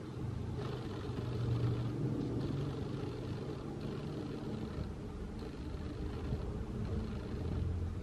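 Steady low rumble and hum, with no clear bird calls.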